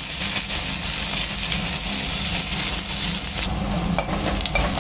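Sliced onions sizzling in hot mustard oil in a kadai, stirred and scraped with a metal spatula. The sizzle thins out about three and a half seconds in.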